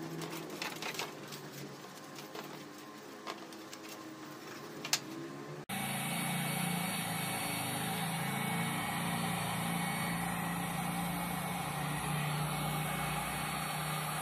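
A toothbrush scrubbing the wet field coil of a Skil 6610 impact drill in a steel tray, in short scratchy strokes with a sharp click near the end. After about six seconds the sound cuts to a heat gun blowing steadily, its fan humming, drying the washed field coil.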